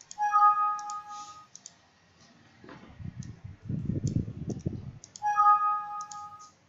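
A computer alert chime sounds twice, about five seconds apart, each a steady multi-pitched tone lasting just over a second. Between them come scattered mouse clicks and keyboard taps.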